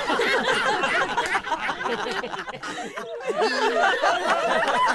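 Live audience laughing, many voices overlapping, dipping briefly about three seconds in before swelling again.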